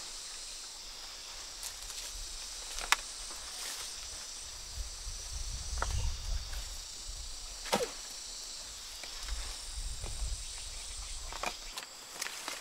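A long-bladed knife slashing through grass and banana stems: a few sharp swishing cuts, several seconds apart. Under them runs a steady high insect drone.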